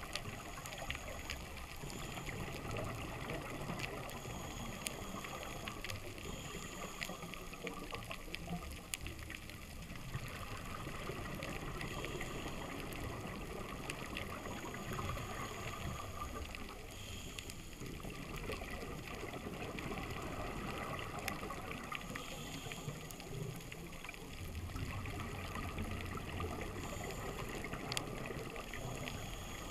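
Underwater sound on a coral reef picked up by a diver's camera: a steady watery wash scattered with sharp clicks, with low bubbling swells every few seconds.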